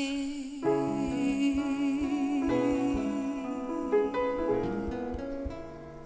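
Live band music: a sung note held with vibrato carries in, then accordion, violin and piano come in with sustained chords about half a second in, getting quieter near the end.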